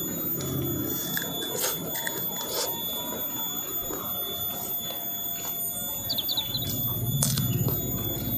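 Close-up eating sounds: chewing and crunching of raw bitter gourd, with a few sharp crunches. A steady high-pitched whine runs underneath.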